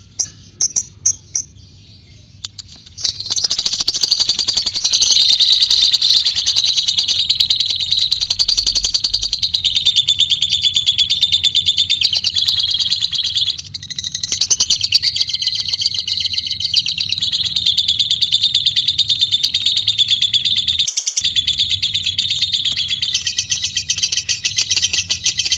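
Lovebird giving its long 'ngekek' song: a few short chirps, then from about three seconds in a loud, very rapid, unbroken high chatter that runs on at length, with only a brief dip part-way through.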